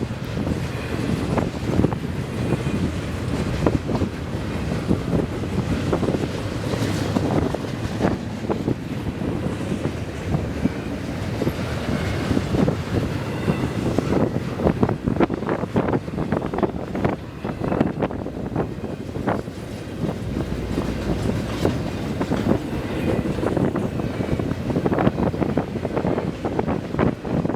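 Intermodal freight train of double-stack container cars rolling past, its wheels clicking and clacking over the rail joints in uneven runs, with strong wind buffeting the microphone.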